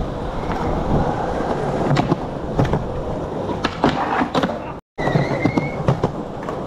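Skateboard wheels rolling over rough concrete with a steady rumble, broken by several sharp clacks of the board being popped and landing. The sound drops out for a moment about five seconds in.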